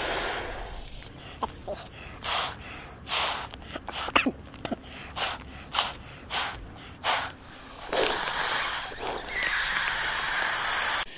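Short, forceful puffs of breath blown into an inflatable sleeping pad's pump sack, about one a second, then a few seconds of steadier rushing hiss.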